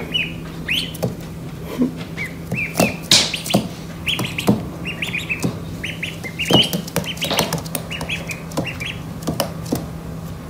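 Ducklings peeping in quick runs of short, high chirps, with scattered sharp clicks in between and a steady low hum underneath.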